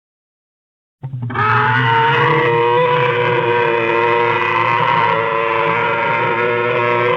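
About a second of silence, then a long dinosaur roar sound effect: a single loud call held at a steady pitch that does not break.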